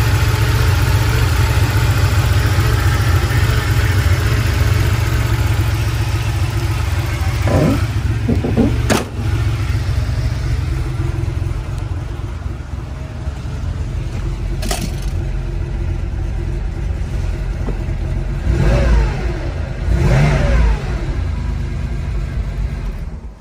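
1986 Porsche 911 Carrera's air-cooled 3.2-litre flat-six running at idle, blipped up and back down around 8 seconds in and twice more near 19 and 20 seconds. Sharp knocks at about 9 and 15 seconds. The engine cuts off at the end.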